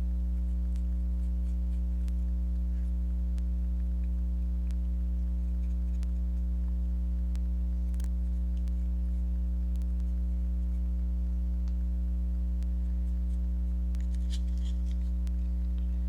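Steady low electrical mains hum, with faint small clicks and light scratching from hands working on a small part; a short patch of scratching comes near the end.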